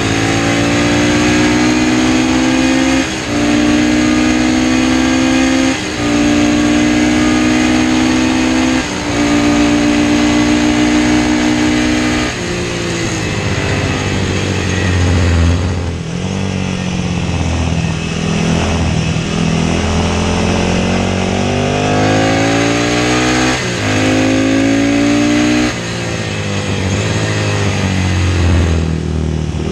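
A classic racing motorcycle's engine at full race pace. It accelerates hard, with quick upshifts about 3, 6 and 9 seconds in. From about 12 seconds it shuts off and drops through the gears as the bike slows. From about 20 seconds it pulls up through the gears again, shifting twice, and eases off once more near the end.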